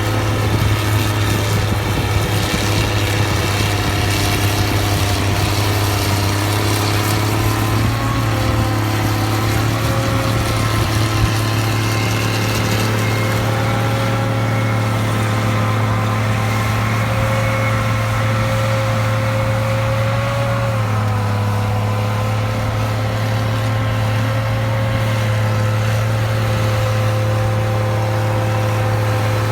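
Fiatallis FD9 crawler bulldozer's diesel engine running steadily at a fairly constant speed, with slight shifts in pitch about eight seconds in and again around twenty-one seconds in.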